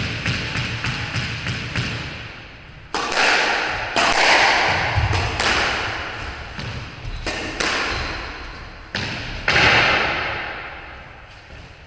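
Squash rally: a series of sharp hits as the ball is struck by racquets and slams into the court walls, each one ringing on in the enclosed court.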